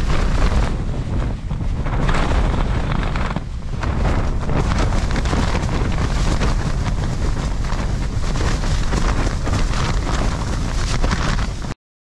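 Storm-force wind buffeting a tent in gusts, with heavy wind rumble on the microphone and quick flapping of the tent fabric close by. The sound cuts off suddenly near the end.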